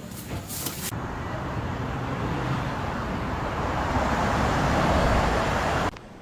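A few sharp clicks, then a steady rushing noise that grows louder and cuts off suddenly near the end.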